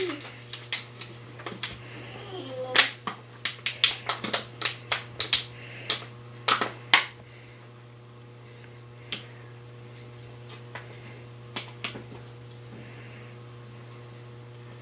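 Irregular sharp snaps and clicks from rubber balloons being stretched over and handled on plastic water bottles, coming thick and fast for a few seconds about three seconds in, then only now and then.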